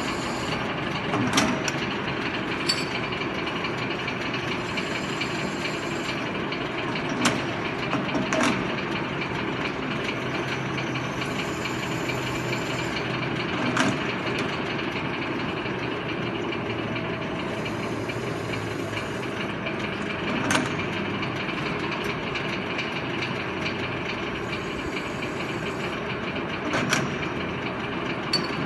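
Stainless-steel glass bottle washing machine running with a steady mechanical drone, broken by a sharp clink every few seconds.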